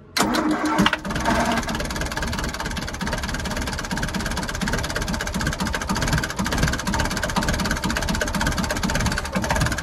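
Perkins 4.108 four-cylinder diesel engine cranking and catching almost at once, then idling steadily with a fast, even beat. This is a cold start after the engine had sat for about a week, with its flame-type glow plug preheater lit.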